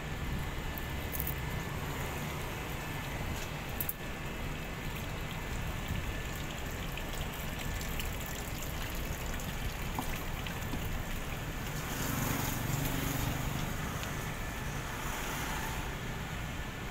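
Steady outdoor ambient noise, a low rumble with hiss and a few faint clicks, swelling briefly about twelve seconds in.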